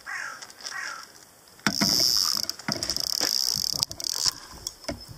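Fishing reel buzzing as line is pulled off it by a carp taking the bait, a run of about two and a half seconds with clicks through it, stopping as the rod is picked up.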